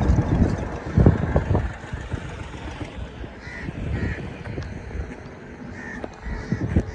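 Crows cawing a few short times, over a low rumbling noise that is strongest in the first two seconds.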